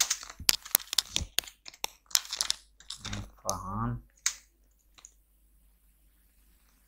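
Typing on a computer keyboard: a quick run of keystrokes for about two and a half seconds, a lone keystroke a little later, then quiet.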